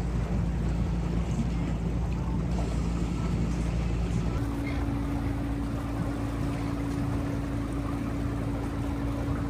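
Small electric outboard motor humming steadily as a small boat moves through the water, with an even rush of water and wind over it. About four seconds in, the hum changes to a higher steady pitch.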